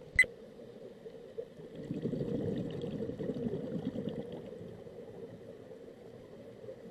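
Scuba regulator exhaust bubbles gurgling underwater, swelling about two seconds in and fading after about four and a half seconds to a low hiss. A single sharp click comes right at the start.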